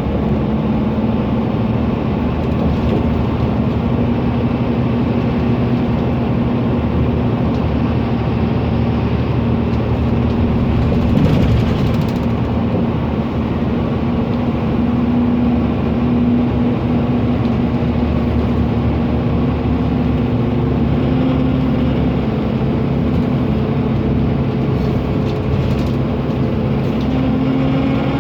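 Mercedes-Benz Conecto NGT city bus's OM 936G natural-gas engine running with its noisy cooling fan, a loud steady drone with a humming tone that rises slightly near the end. A short hiss comes about eleven seconds in.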